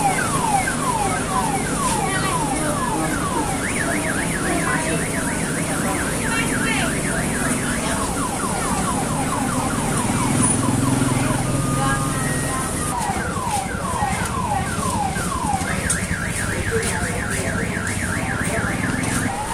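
An electronic alarm siren cycles through its tone patterns: runs of falling whoops at about three a second alternate with a faster rising warble, switching several times. A steady low engine hum runs beneath.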